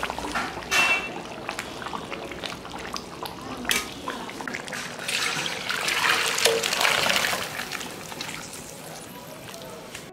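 Cooked mutton curry being taken off and poured out of the cooking pot: liquid sloshing and pouring, with a few sharp knocks of metal utensils. The pouring is loudest from about five to eight seconds in, then fades.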